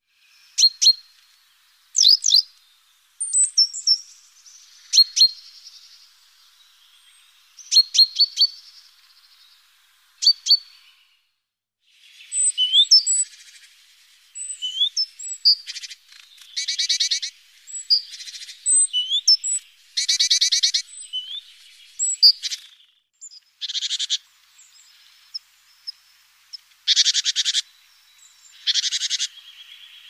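Small garden songbirds calling: sharp, separate chip notes over the first ten seconds or so, then thin whistled notes mixed with short, fast rattling trills that come every few seconds.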